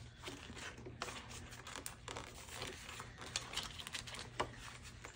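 Faint rustling and crinkling of paper bills being handled, with small irregular ticks and scrapes, as cash is stuffed into a savings envelope.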